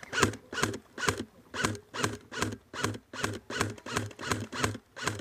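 Brisk footsteps crunching on dry ground, about two and a half steps a second.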